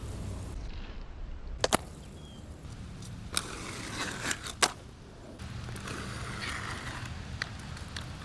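Skateboard rolling on wet pavement with a steady low rumble and some hiss of water, broken by several sharp clacks of the board, a quick double one about two seconds in.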